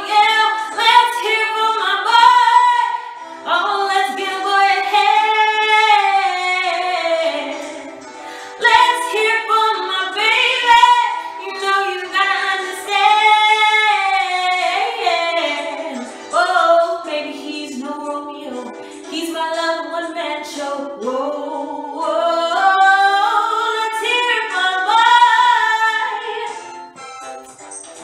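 A woman singing solo and unaccompanied: long phrases of held notes and sliding runs that rise and fall in pitch, dropping away near the end.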